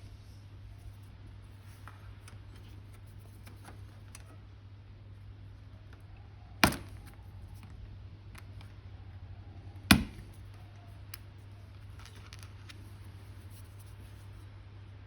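Small hobby tools and plastic model-kit parts being worked at a bench: faint small ticks and two sharp snaps about three seconds apart, over a steady low hum.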